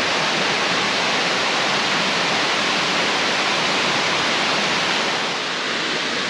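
Steady rushing roar of a cascading waterfall, even and unbroken.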